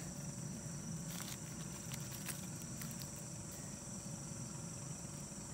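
Insects chirring in a steady, high, even drone, with a few faint clicks.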